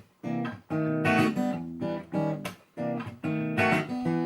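Acoustic guitar strumming the intro chords of a song, in short bursts about a second apart with brief stops between them.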